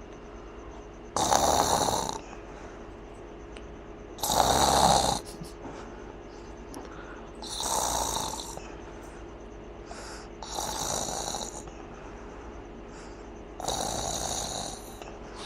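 Loud snoring from someone deeply asleep and worn out: five snores about three seconds apart, each lasting about a second.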